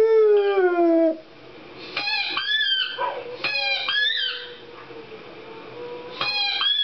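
Siberian husky howling: a long, loud howl that slides down in pitch and breaks off about a second in. After it come shorter, higher-pitched wavering calls in three bursts, quieter than the howl.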